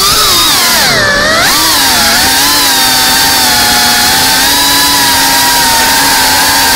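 FPV quadcopter's brushless motors and propellers whining, heard close from the onboard camera. The pitch dips and climbs back about a second in with the throttle, then holds nearly steady with a slight waver.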